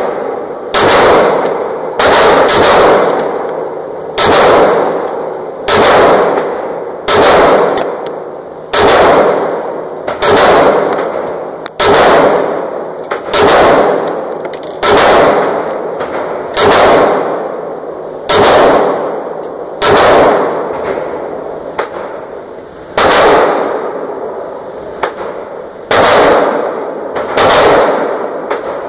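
Walther PPQ M2 pistol in .40 S&W firing single shots at a slow, steady pace, about one every second and a half. Each shot rings on in the enclosed indoor range.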